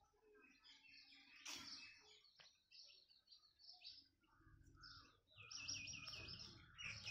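Faint birdsong: scattered small chirps, with a quick trill of repeated high notes about five and a half seconds in.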